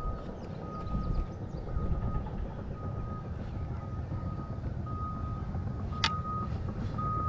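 A vehicle's reversing alarm beeping, a single high tone about once a second, over a low rumble. A sharp click sounds about six seconds in.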